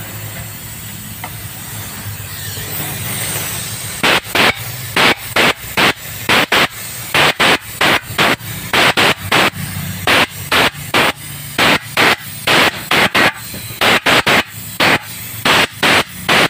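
Compressed air from a shop compressor's blow gun: a few seconds of steady hiss, then a long run of short, sharp blasts at about two a second, blowing out the engine's valve area.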